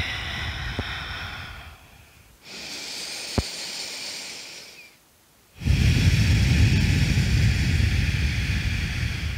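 A woman's slow, audible breathing: three long breaths with short pauses between them, the last, about halfway in, louder and fuller.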